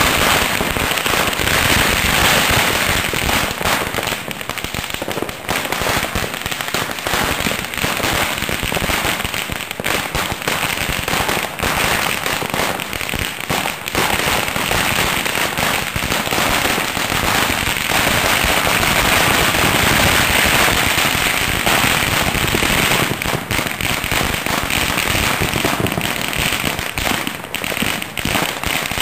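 A duizendklapper, a long string of firecrackers, going off in a rapid, unbroken rattle of bangs.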